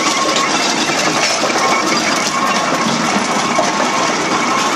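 Steam roller running: a steady hiss of steam mixed with a dense, fast metallic clatter from its engine and gearing.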